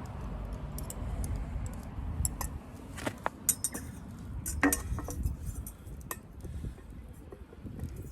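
Metal camp cookware and utensils clinking and knocking together: a handful of sharp clinks with a short ring, the loudest about halfway through, over a low rumble in the first few seconds.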